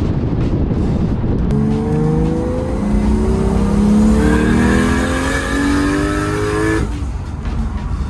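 Turbocharged 1JZ-GTE inline-six of a Toyota Chaser under hard acceleration, heard from inside the cabin. After a rumble of engine and road noise, the engine note climbs steadily in pitch from about a second and a half in for some five seconds, then cuts off abruptly near the end.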